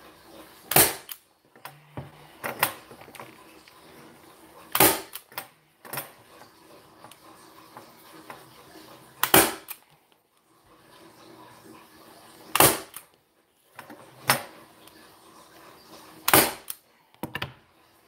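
Manual hand staple gun firing staples through upholstery fabric into an armrest: about nine sharp snaps at irregular intervals of one to three seconds, with fainter handling clicks between them.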